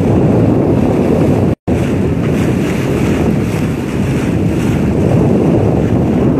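Wind buffeting the microphone over the rush of sea water past a sailboat's hull, steady throughout; the sound cuts out for an instant about a second and a half in.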